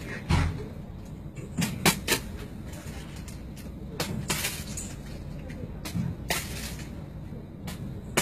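Scattered light knocks and clicks with faint rustling over steady low room noise, from a cat clambering about on a metal-framed bunk bed and its curtain; a low thump comes just after the start.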